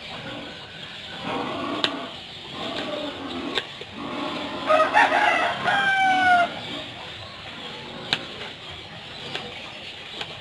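A rooster crows once, about five seconds in, for about two seconds. A few sharp taps of a knife on a plastic cutting board come between, as tomatoes are sliced.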